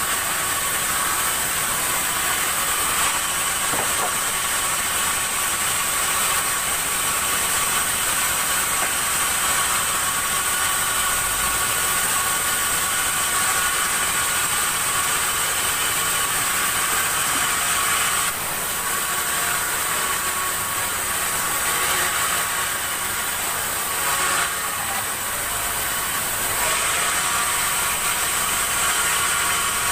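Sawmill machinery running steadily: a continuous mechanical drone with a high hiss and whine, which eases a little about two-thirds of the way through.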